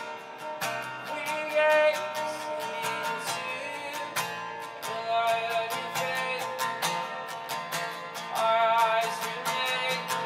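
Live worship music: acoustic guitar strummed in a steady rhythm, with wavering held melody notes over it that swell louder about two seconds in and again near the end.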